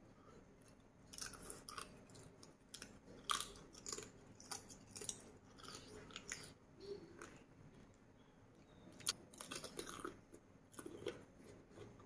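Close-miked chewing of a mouthful of spicy salad with pickled crabs: faint, irregular wet mouth clicks and crunches, the sharpest about three seconds in and again around nine seconds.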